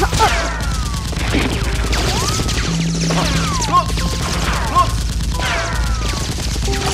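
Dubbed-in rapid gunfire sound effects over background music, with short whistling sweeps among the shots.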